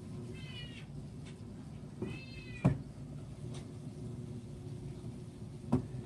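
A cat meows twice, a short call about half a second in and a longer rising-then-falling one about two seconds in, over a steady low hum from the waterfall's pump. Two sharp knocks, the loudest sounds, come just after the second meow and near the end.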